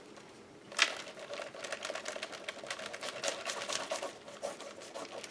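Quick, irregular tapping and rustling of paper pieces being handled and pressed down on a work table, starting with a sharper tap about a second in.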